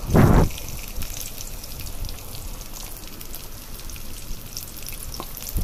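Sliced onions and green chillies frying in hot oil in a kadai: a loud sizzling burst as the handful hits the oil right at the start, then a steady crackle of frying.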